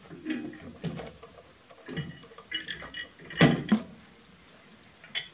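Scattered metal clinks and knocks from a mounting plate and its bolts being handled and fitted against a tractor's hydraulic loader control valve. The loudest is a pair of knocks a little past the middle.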